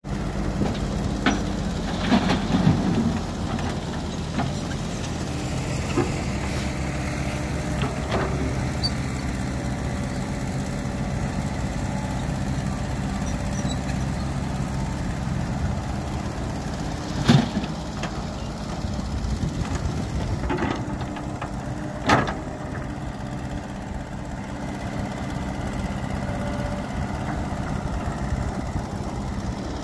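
Caterpillar E120B hydraulic excavator's diesel engine running steadily as it digs, with a handful of sharp clanks and thuds from the bucket striking and dumping soil, the loudest about two-thirds of the way through.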